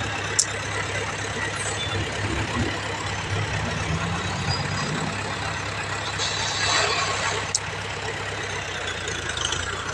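Dump truck engine running steadily while it tips its load of soil, with a brief rush of noise about seven seconds in and a couple of short sharp clicks.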